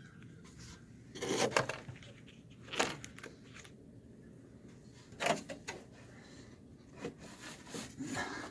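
A few short scrapes and rubs, spaced a second or two apart, as a steel parking brake cable is tugged against its rusted sleeve. The cable is rusted and broken inside the sleeve and does not come free.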